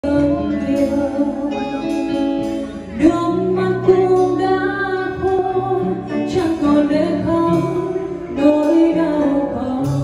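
Small live band playing through a PA system: acoustic guitar, electric guitar, electric bass and keyboard, with a singer on a handheld microphone.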